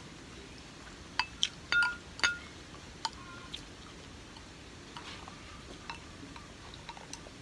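Eating utensils clinking against a dish about five times with a brief ringing tone, mostly in the first few seconds, followed by fainter scattered clicks.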